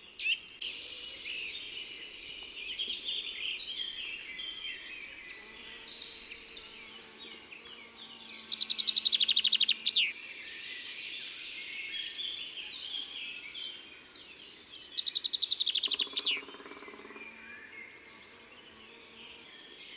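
Songbirds singing: short bright phrases that climb to a high flourish, repeated every few seconds, with two bursts of rapid trilling, over a faint steady background hum.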